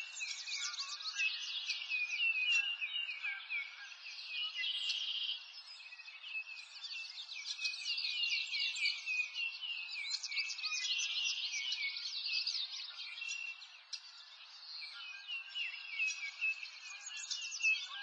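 A chorus of songbirds chirping and trilling continuously: rapid runs of high, quick downward-sweeping notes that overlap without a break.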